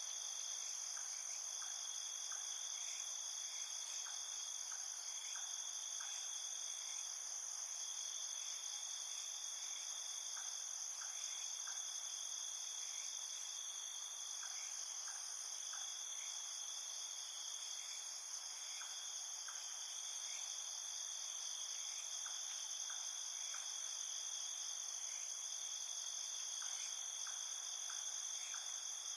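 Night chorus of crickets and other insects: several steady, high shrill trills, with one lower trill that starts and stops every second or two. Faint short ticks come in small groups every few seconds.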